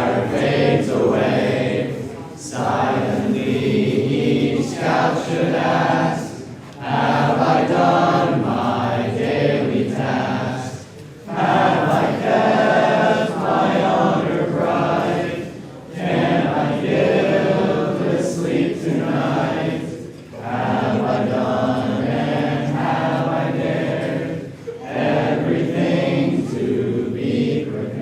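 A group of voices singing together in a slow song, line by line, with short pauses for breath between phrases.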